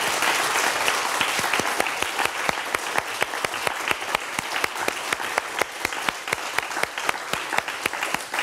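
Audience applauding in a lecture hall. The dense applause thins out over a few seconds into scattered separate claps and slowly dies down.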